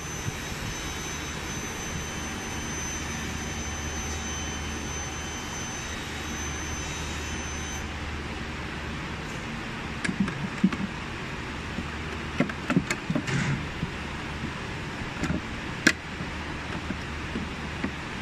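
Clicks and knocks of a cabinet door and its concealed steel hinges being handled and adjusted by hand, coming in irregular clusters in the second half, with one sharp click the loudest. Under it runs a steady rushing background noise.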